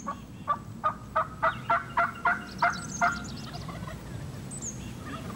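Turkey yelps blown on a hunter's mouth call: a run of about ten evenly spaced notes, roughly four a second, that stops about three seconds in. The calling is meant to draw an answering gobble.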